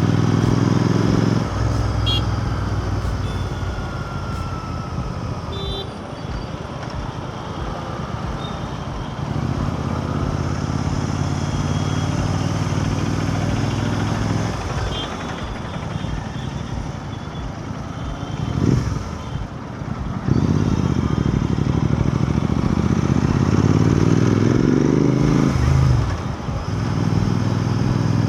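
Royal Enfield Continental GT 650's parallel-twin engine running under way. The engine note drops off and picks back up several times, as when the throttle closes and gears change, and rises with acceleration near the end. Wind and road noise run underneath.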